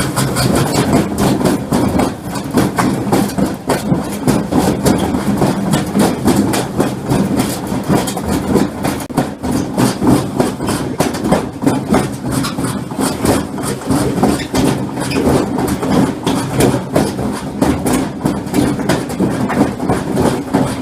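Washing machine drum spinning with a heavy loose load inside, the motor humming under a fast, continuous clattering and banging.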